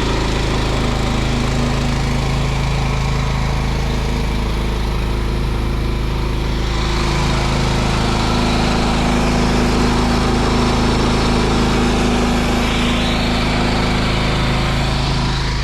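Small gasoline engine of a pressure-washing rig running steadily at working speed. A rushing hiss joins it about seven seconds in.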